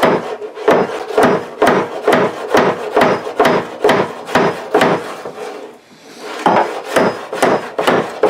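Cloth rag rubbed briskly back and forth over a freshly hafted trail axe, working in a coat of oil and wax, about two strokes a second, pausing briefly about five seconds in.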